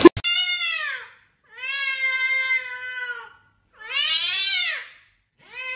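A domestic cat yowling in long, drawn-out calls that rise and fall in pitch. Three come in a row with short gaps, and a fourth begins near the end.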